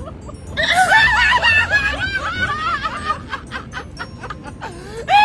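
People laughing and snickering in high, wavering bursts, with a run of quick breathy laughs about three seconds in, over music.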